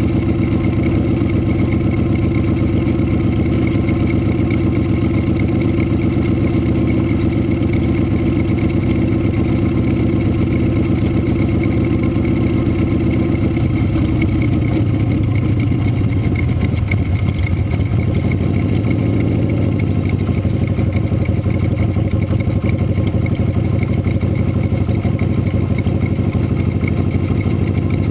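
Motorcycle engine running steadily at low parade speed, heard close up from the bike itself; the engine note changes about halfway through.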